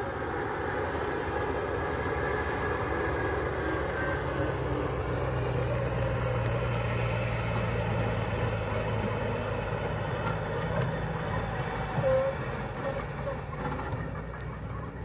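Heavy truck's engine running as it drives along a dirt road, the low hum strongest about halfway through as it comes closest, then easing off. A short knock sounds about twelve seconds in.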